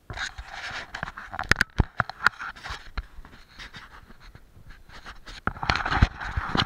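Tall dry grass swishing and crackling against the camera as it pushes through the cover, with sharp snaps of stems, loudest about two seconds in and again near the end.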